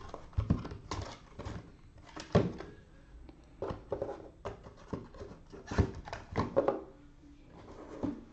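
Irregular thunks and knocks, about eight short sharp ones over several seconds, from objects being handled and set down on a table.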